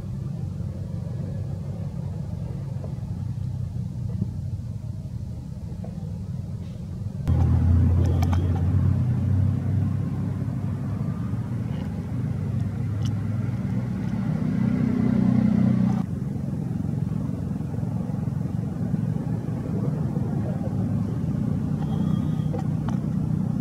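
A steady low rumble of background noise. It gets louder about seven seconds in and drops back about sixteen seconds in.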